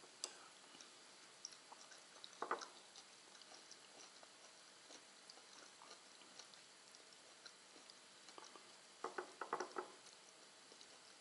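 Faint chewing with scattered small clicks: a short cluster about two and a half seconds in and a denser run of clicks near the end.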